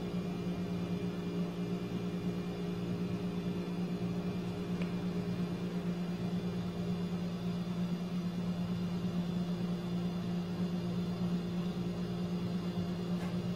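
Steady low electrical hum with faint high whining tones above it, unchanging throughout.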